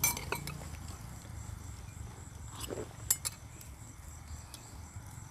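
Bowls and eating utensils clinking, with a few sharp clinks: one right at the start and another about three seconds in. A steady low hum sits underneath.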